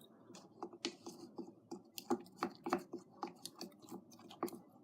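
A utensil stirring and scraping against a bowl while mixing toothpaste and glue into slime, making irregular clicks and scrapes several times a second.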